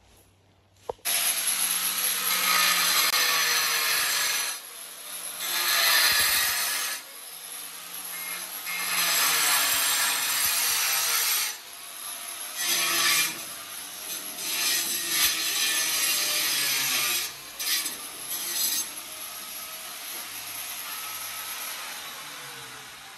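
An angle grinder cutting into concrete, running in several long cuts with short breaks between them and fading off near the end.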